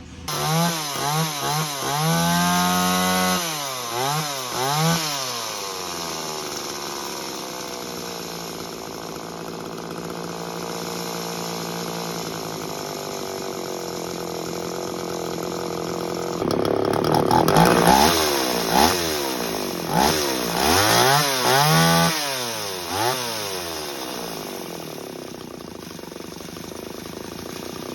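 Small two-stroke engine of the chainsaw kind, revved up and down in quick throttle blips, then running steadily and slowly dropping in pitch, then blipped hard again several times before settling.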